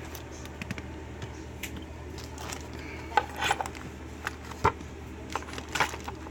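Clatter of a wooden pinning tray and loose metal locks being moved about on a workbench: scattered small clicks and knocks, with a few sharper knocks from about three seconds in.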